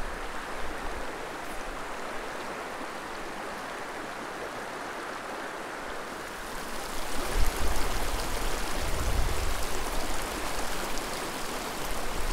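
Small mountain creek running over rocks, a steady rushing hiss of water that grows louder and brighter about six seconds in, with some low rumble a little later.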